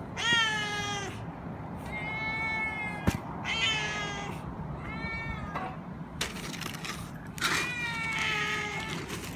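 Two domestic cats meowing in turn, about five drawn-out meows, calling for food. A short sharp click sounds about three seconds in.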